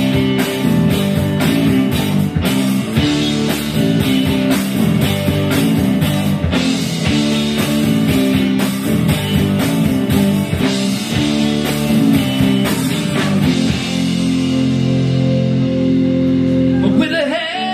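Rock band playing, with guitar and drum kit. The drums stop about fourteen seconds in, leaving a held guitar chord ringing, and a voice comes in near the end.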